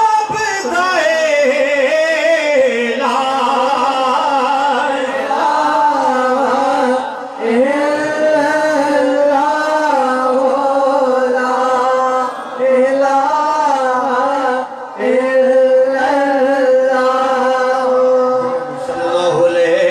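A man singing a naat unaccompanied, in long held, ornamented phrases with brief pauses for breath between them.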